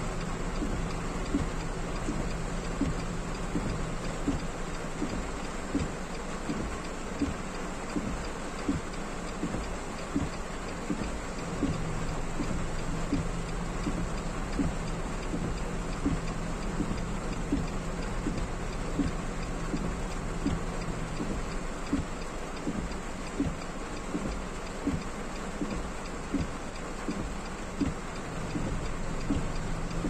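Heavy rain pelting a car's roof and windshield, heard from inside the cabin: a steady hiss dense with sharp, irregular drop ticks, over a steady low hum.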